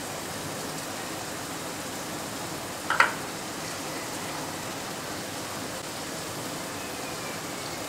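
Chopped onion and tomato masala sizzling steadily in oil in a kadai, with one sharp click about three seconds in.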